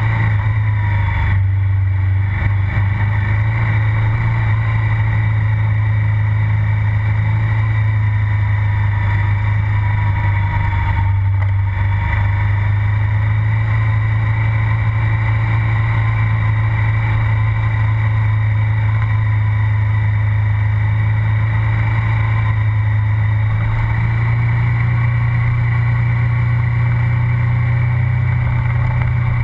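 KTM 990 SMR's V-twin engine and exhaust, heard close to the silencer, pulling steadily at an even cruising speed with only small changes in throttle. The engine note steps up a little near the end.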